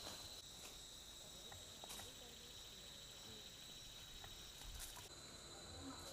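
Faint, steady high-pitched chirring of insects in the countryside, with a few soft clicks scattered through it.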